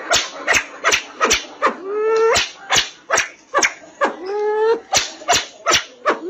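A pheasant-family game bird calling: a steady run of sharp clicks, about two to three a second, with a short rising call every couple of seconds.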